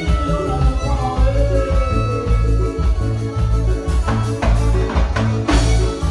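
Live regional Mexican band music: a heavy bass beat repeating about twice a second under melodic instrument lines, with no singing.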